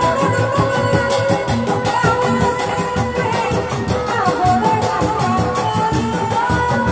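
Sundanese reak ensemble playing: dogdog drums and a large barrel drum beaten in a fast, steady rhythm, with a wavering, sustained melody line carried above the drums.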